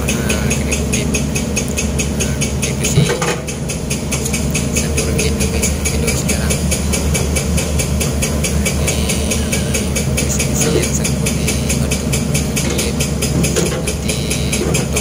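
Long-reach excavator's diesel engine idling steadily, heard from inside the cab, with one sharp knock about three seconds in.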